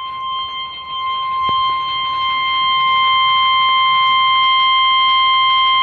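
NOAA Weather Radio warning alarm tone, a single steady 1050 Hz beep, sounding through a Realistic 12-141 weather radio's speaker. It grows louder over the first few seconds and then holds steady. It is the alert that signals a warning broadcast is about to follow.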